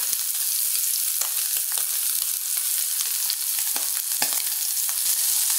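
Sea scallops searing in hot olive oil in a cast iron skillet: a steady sizzle with a few scattered pops and crackles.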